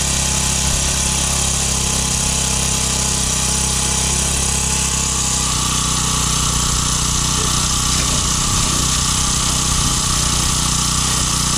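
Engine of an earth-moving machine digging out the site, running steadily under load; its pitch shifts about five seconds in.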